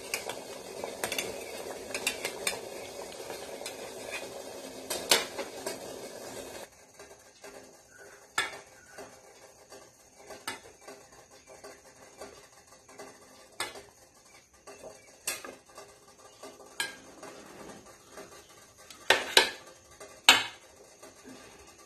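Metal spatula clinking and scraping against a stainless steel steamer tray as steamed momos are lifted out. The clinks come singly, a few seconds apart, with a cluster of louder ones near the end. A steady hiss underneath the first third cuts off suddenly.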